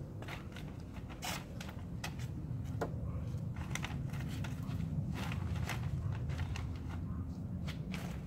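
Irregular crunching footsteps and crackling handling noise, scattered clicks over a steady low rumble.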